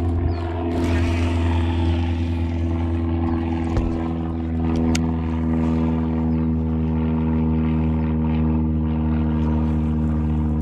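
Boat motor running at a steady speed, a low even hum that holds one pitch throughout, with a couple of faint clicks.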